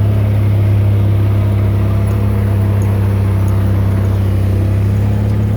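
Forklift engine running steadily at a constant pitch, heard up close from aboard the forklift.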